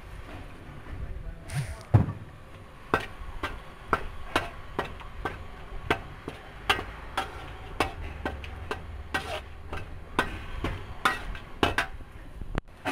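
Metal spatula striking and scraping against a metal wok while stir-frying meat: a run of sharp clanks, about two a second, the loudest about two seconds in.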